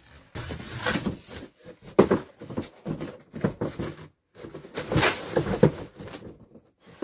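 Cardboard scraping and rustling, with a few knocks, as an inner box is pulled up out of a large cardboard carton. It comes in two stretches with a short pause about four seconds in.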